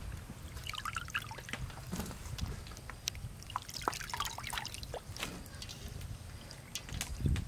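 Water trickling and dripping from handfuls of soaked sliced ingredients lifted out of a stainless-steel bowl of water, with light scattered clicks and taps as the pieces are dropped into a metal colander.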